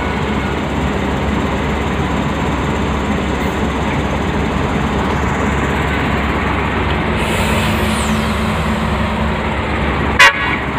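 Heavy diesel engines of crawler bulldozers running steadily under load as they tow a loaded log truck through deep mud. A single sharp knock near the end.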